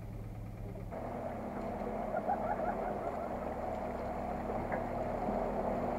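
Land Rover Series off-roader's engine running with a steady low drone that grows slowly louder as the truck approaches, with faint chirps above it.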